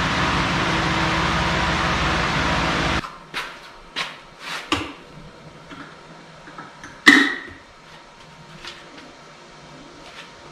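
A steady machine running noise that cuts off abruptly about three seconds in, then light knocks and clicks of hands and tools working on a Bridgeport milling machine's head, with one loud, ringing metal clank about seven seconds in.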